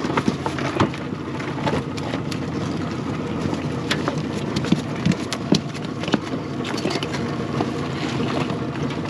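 Small boat's outboard motor idling steadily, with scattered sharp clicks and drips of water.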